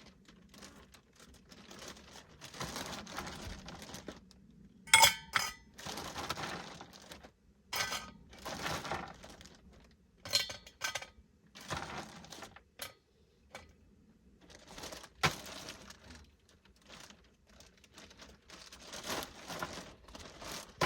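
A plastic bag of ice crinkling and rustling as it is handled, with several sharp clicks and knocks of ice against a cup.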